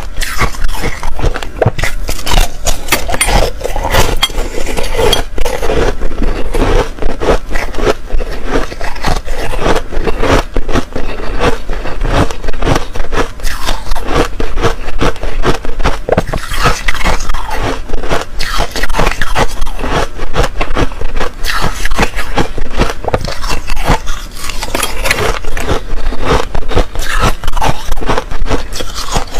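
Chunks of ice being bitten and chewed close to a clip-on microphone: a dense, continuous run of loud crunches and cracks.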